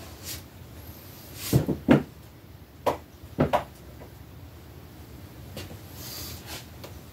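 Off-camera handling of hard plastic action figures: a few sharp clacks and knocks as figures are picked up and set down, two about a second and a half in and more around three seconds, then a brief soft rustle near six seconds.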